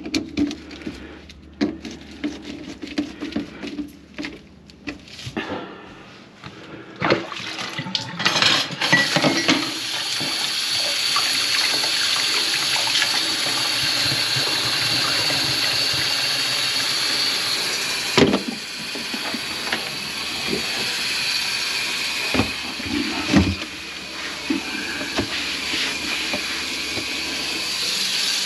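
A few seconds of knocks and clatter, then from about eight seconds in water running steadily into a kitchen sink, with a couple of sharp thumps partway through.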